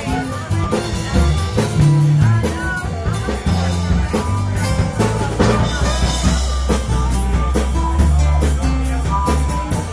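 Live band playing amplified music with drum kit, acoustic guitar, harmonica and bass, with regular drum hits throughout.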